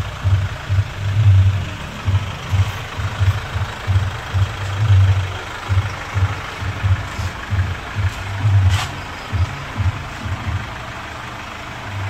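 An engine running with an uneven low throb.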